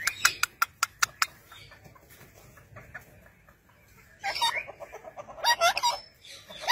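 Parakeets calling: a quick run of about eight short, sharp chirps in the first second or so, then after a pause of about three seconds, two bursts of squawking calls that slide up and down in pitch.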